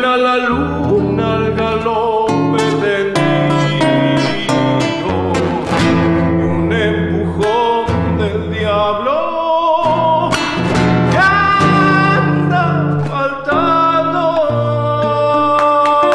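A man singing a folk song to his own strummed nylon-string classical guitar, ending on a long held note.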